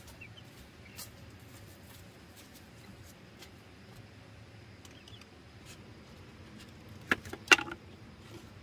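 A wooden board knocking twice against wood or the ground near the end, two sharp knocks about half a second apart, the second louder, as the board is handled and set in place.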